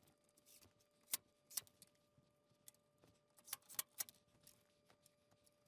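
Near silence, with a few faint, scattered clicks and taps of metal hinge hardware as door hinges are fitted to a wooden jamb.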